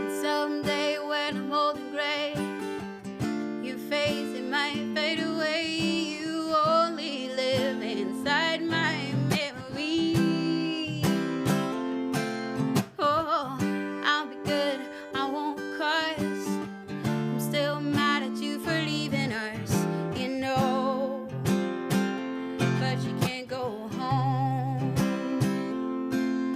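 Acoustic guitar played through an instrumental passage of a song, strummed and picked chords with a wavering melody line above them.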